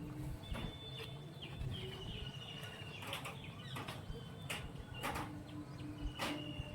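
Birds at their food: scattered sharp clicks with thin, high, steady chirping tones.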